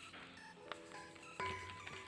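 Background music of short, bright repeating notes, with a single knock about one and a half seconds in.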